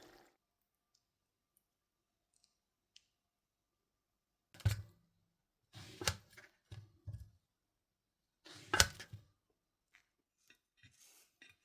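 A few short knocks and clicks against a quiet room: one about four and a half seconds in, a small cluster a second later, and the loudest near the middle, with faint ticks towards the end.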